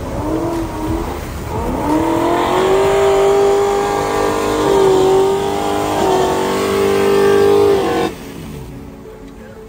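Toyota 4Runner engine revving hard as its tyres spin in deep snow. The note rises, holds high and steady, dips briefly, then cuts off sharply about eight seconds in.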